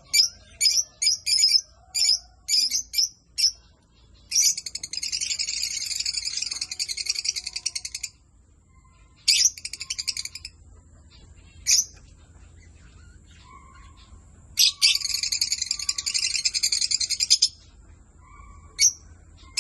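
Parrots calling: a quick run of short, sharp chirps, then a long rasping, chattering bout of about four seconds, a few single loud calls, and a second chattering bout of about three seconds.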